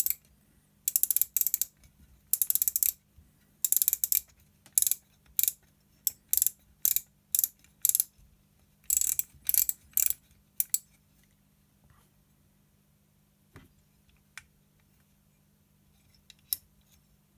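Rapid detent clicks of an AR-15 carry-handle rear sight's adjustment knob being turned, in short ratcheting bursts of about half a second each, repeated many times. In the last third they thin out to a few single clicks.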